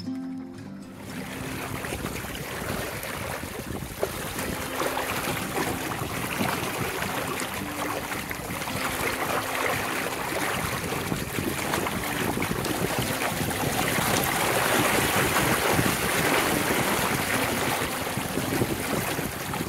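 Water rushing and churning in a small sailboat's wake past its rudder, with wind buffeting the microphone. The rush starts about a second in and builds, loudest a little past the middle.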